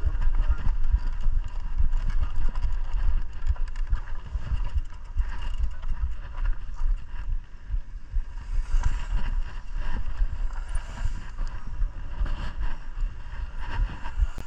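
Mountain bike being ridden over a rough trail: wind buffeting the camera's microphone in uneven gusts, mixed with the bike's rattles and knocks over the ground.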